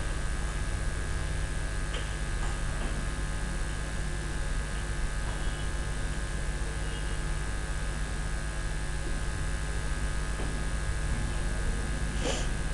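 Steady electrical hum with hiss from a recording microphone's noise floor, broken by a few faint clicks.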